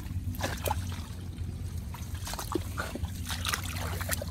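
Shallow water trickling and splashing around a ring fishing net as it is handled, with scattered small splashes over a low steady rumble.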